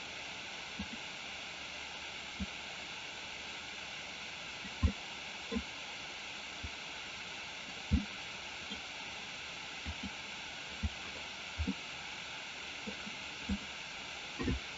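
Steady hiss of an open microphone, with soft low knocks scattered irregularly through it. The two loudest come about five and eight seconds in.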